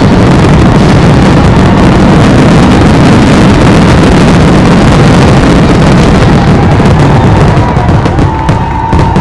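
Fireworks finale: a dense, continuous barrage of bursts that merges into one very loud rumble, thinning out near the end.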